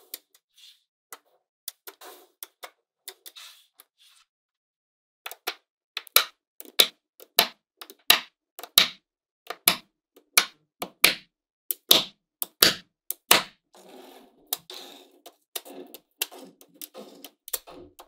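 Magnetic balls clicking as strips and blocks of them snap onto a slab of balls. A few light clicks come first, then a quick run of sharp clacks about two or three a second, then softer rattling clicks near the end.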